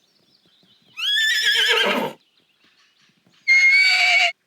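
Horse whinnying twice: a wavering call of about a second, then a shorter, steadier one near the end.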